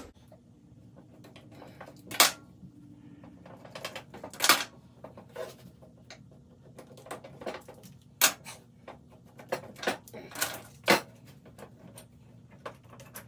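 Woodworking clamps being loosened and pulled off a glued-up block, with irregular clicks and rattles from the clamps and a few sharper knocks as they are set down.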